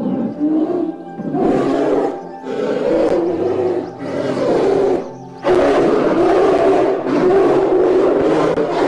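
Polar bear growling: a run of short, rough growls, then a longer, almost unbroken stretch of growling from about halfway through.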